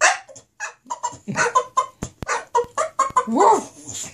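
English bulldog making a string of short, feeble, clucking bark-like grunts, with a rising-and-falling whining yodel about three and a half seconds in: a half-hearted, pitiful attempt at barking.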